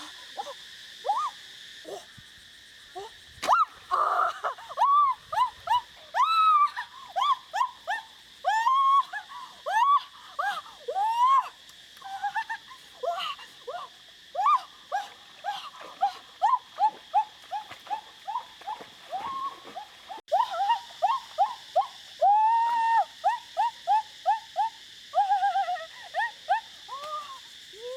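Frogs calling in a flooded rice paddy: a long string of short calls that rise and fall in pitch, several a second, sometimes overlapping. Under them runs a steady high-pitched drone.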